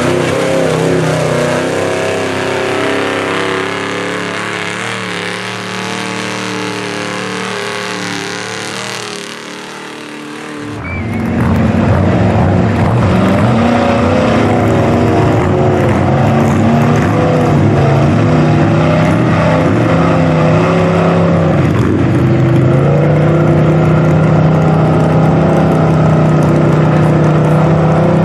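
Mud truck engines revving hard, fading somewhat over the first ten seconds. About eleven seconds in there is an abrupt cut to a louder engine running at high revs, which rises and falls a little.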